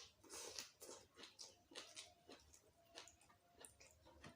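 Close-miked chewing of boiled cassava leaves: soft, wet mouth clicks and smacks, about two or three a second.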